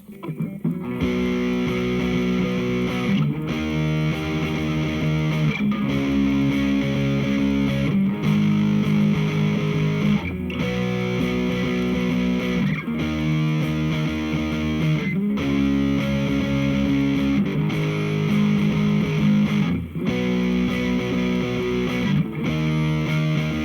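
Electric guitar played through a Hughes & Kettner Attax Metroverb 50-watt transistor amp on its overdrive channel. Distorted chords are held and changed about every two and a half seconds, with a short break before each new chord.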